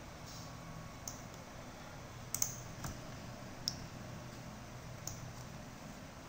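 Scattered computer clicks from mouse and keyboard use: several short, sharp clicks spread over a few seconds, the loudest a quick double click about two and a half seconds in. A faint steady low hum runs underneath.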